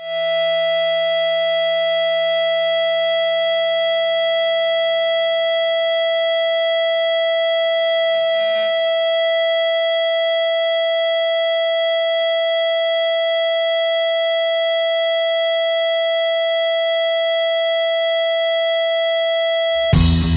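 A single steady, high, siren-like tone held without any change in pitch for about twenty seconds, opening a rock song; near the end the band crashes in with bass, guitar and drums.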